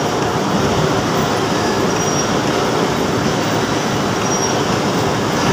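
Metal lathe running with a steady, even mechanical noise while it machines a threaded steel foundation bolt.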